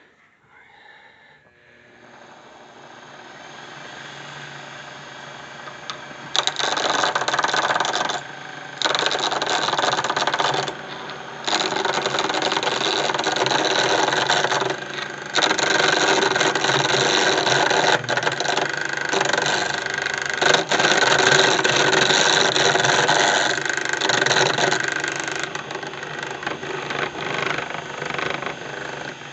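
Wood lathe motor spinning up gradually, then a turning tool cutting a spinning teak pen blank in several bouts of a few seconds each, with short pauses where the tool lifts off.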